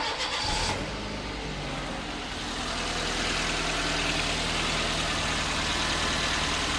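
Car engine started with the key, catching about a second in and then idling steadily.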